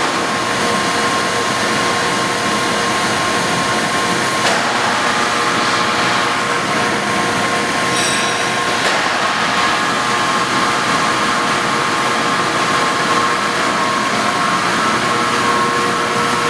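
Machine tool running steadily while machining a metal driveshaft centre support, a constant mechanical hum with a steady whine. A brief click about four and a half seconds in, and a short high-pitched ring around eight seconds in.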